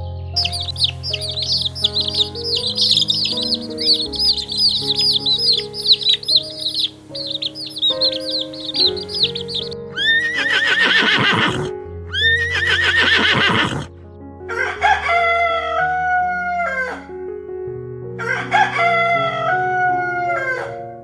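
Chickens: about ten seconds of rapid high peeping, then two harsh falling calls, then a rooster crowing twice, each crow about two seconds long. Background music plays underneath.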